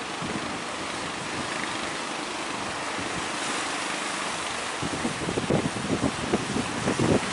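Heavy sea surf breaking and washing, with wind blowing across the microphone. From about five seconds in, the wind buffets the microphone in strong gusts.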